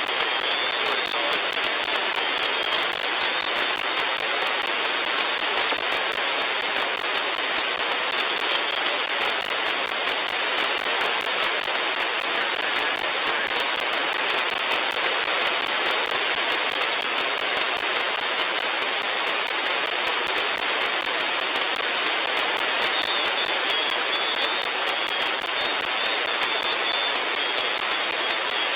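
Steady static hiss from a shortwave software-defined radio receiver tuned to the 40-metre amateur band with no station transmitting. The hiss is cut off sharply at the top by the receiver's audio filter and carries a fine, continuous crackle of clicks.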